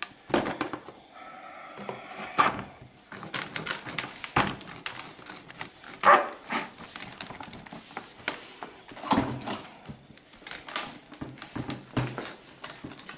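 A metal tool scraping and knocking against a bonsai pot and a hard, tightly packed root ball while the root ball is worked loose: a run of irregular clicks, scrapes and knocks with a short squeak about a second in, and the loudest knock about halfway through.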